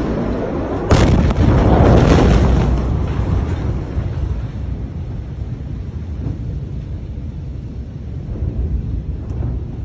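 Blast wave from a massive explosion of stored nitrate reaching the phone: a sudden loud bang about a second in, then a rumble for about two seconds that fades into low wind buffeting on the microphone.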